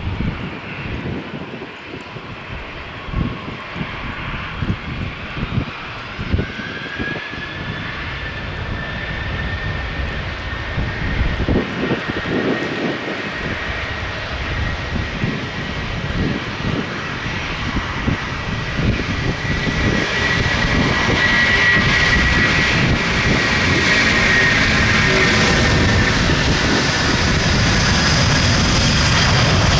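Jet airliner's engines, a high steady whine that rises slightly in pitch about six seconds in and grows steadily louder as the aircraft approaches.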